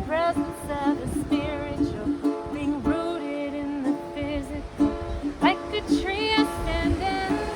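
Ukulele playing repeated plucked notes under a woman's singing voice, its melody gliding and wavering in pitch.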